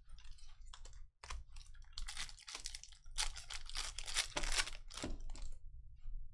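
A foil trading-card pack wrapper being torn open and crinkled by hand: a quick run of sharp crackling rips and rustles, thickest in the middle and dying away near the end.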